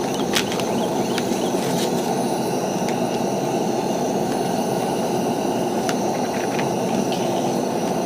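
Camp stove burner running steadily under a pan, just relit after going out, with a few sharp ticks over it.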